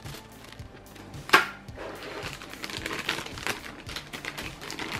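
A thin plastic parts bag crinkling and crackling as it is handled and opened, with one sharp click about a second and a half in.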